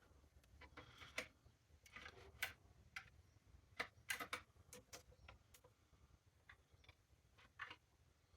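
Faint, irregular clicks and taps of hard tool parts being handled while an accessory is fitted to a cordless circular saw.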